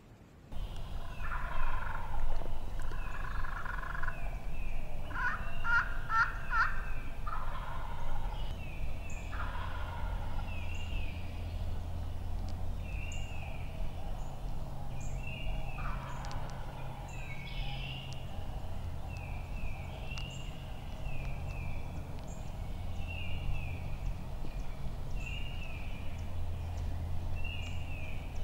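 Wild turkey gobbler gobbling, a rattling call given several times in quick succession in the first ten seconds and once more about sixteen seconds in.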